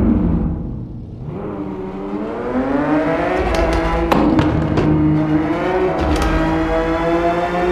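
Porsche 911 GT3 RS flat-six engine revving. The revs drop in the first second, then climb steadily for the rest, with several sharp exhaust pops along the way.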